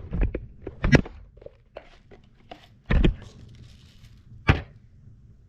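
Plastic clicks and knocks from handling a Roomba 960's dustbin as it is taken out and opened, a scatter of separate taps with two louder knocks about three and four and a half seconds in.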